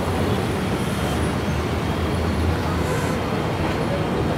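Steady low rumble of passing street traffic, with no breaks.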